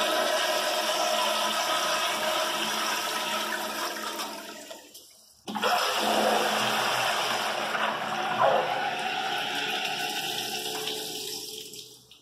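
Commercial tankless toilets with flushometer valves flushing, the water rushing loudly through the bowl. The first flush dies away within about five seconds; a second flush starts abruptly just after and fades out near the end.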